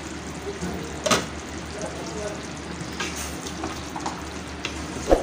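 Chicken masala gravy sizzling steadily on a low flame in a non-stick kadai while a spatula stirs it. There is a sharp knock about a second in and another near the end.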